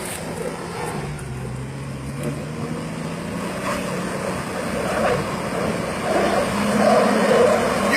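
Jeep's engine working hard on a steep hill climb, its pitch dropping about a second in and then climbing back up, growing louder toward the end.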